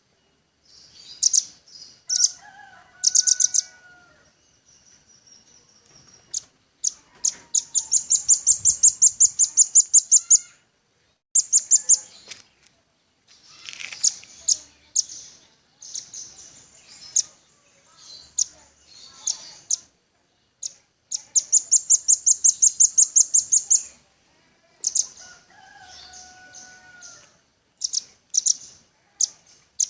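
Velvet-fronted nuthatch singing: sharp, high notes repeated in fast runs of about five a second, two long runs lasting a few seconds each, with shorter bursts and single chips between them. A few lower whistled notes come in about two seconds in and again near the end.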